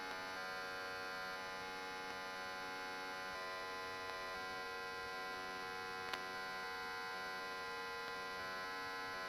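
Steady electrical mains hum with many overtones, with a faint single click about six seconds in.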